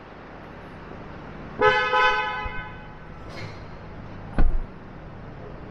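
Car horn honking, about a second and a half long with a brief dip partway, starting about one and a half seconds in. A single heavy thump follows near the end.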